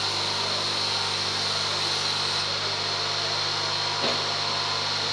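Steady hum of a running workshop machine's electric motor, even and unchanging, with a brief faint knock about four seconds in.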